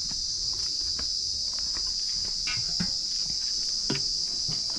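Steady high-pitched drone of insects singing, with a few scattered light knocks and clicks.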